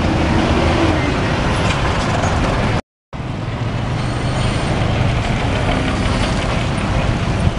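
Large tour-bus diesel engines running as the buses drive across a railway level crossing, with road traffic noise around them. The sound cuts out completely for a moment about three seconds in, then a second bus's low engine rumble carries on.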